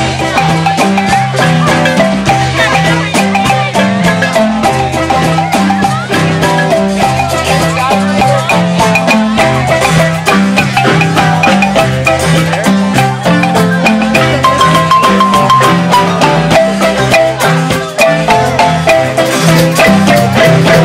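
Zimbabwean-style marimba band playing live: fast, interlocking repeated marimba patterns over a cycling low bass-marimba line, with electric guitar and hand drum in the band. A single held higher note sounds briefly about two-thirds of the way through.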